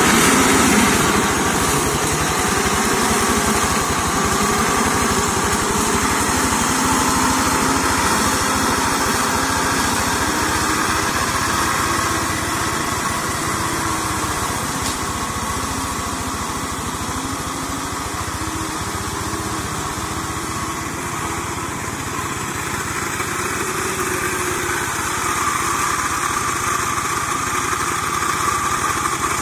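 Two-wheel hand tractor converted into a brush mower, its single-cylinder diesel engine running steadily while it clears undergrowth. It grows somewhat fainter midway and louder again near the end.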